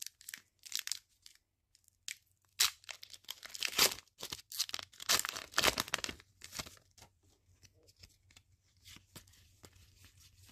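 A Pokémon card booster pack's foil wrapper being torn open, in a string of crinkly rips over the first seven seconds or so. Then softer rustling and faint ticks as the cards are slid out and handled.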